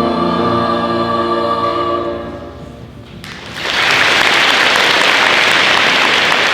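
A held final chord of choral music fades away, and about three seconds in an audience breaks into loud, steady applause.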